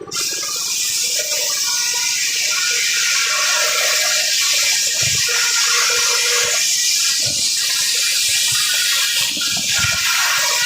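Circular saw blade cutting through a wooden log: a loud, steady hissing rush that starts and cuts off suddenly.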